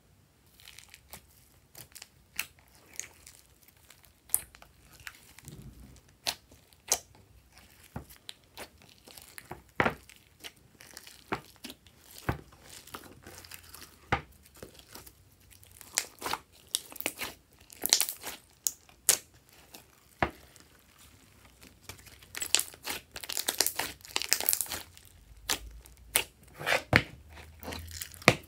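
Glossy slime being stretched, squeezed and folded by hand, giving irregular sticky pops and crackles that come thicker near the end.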